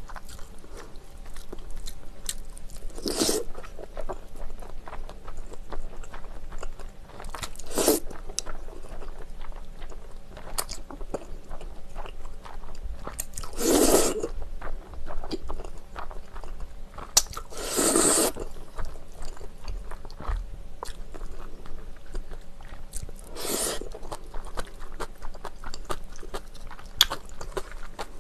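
Close-miked eating of spicy bibim noodles: five loud slurps of noodles, about one every five seconds, with wet chewing and crunching in between.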